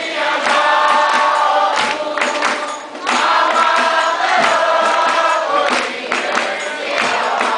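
A group of people singing together with hand-clapping. The singing breaks off briefly about three seconds in.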